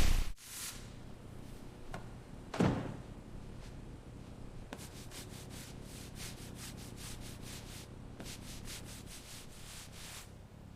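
Quick, repeated sanding strokes against a surface, after a single knock about two and a half seconds in.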